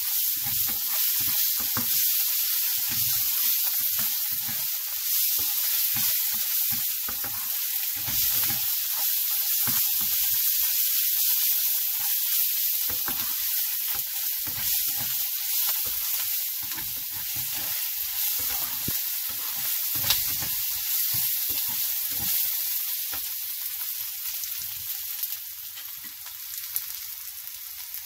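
Chopped onions and brown mustard seeds sizzling in hot oil in a nonstick frying pan, with the repeated scrape of a plastic spatula stirring them. The sizzle eases off a little near the end.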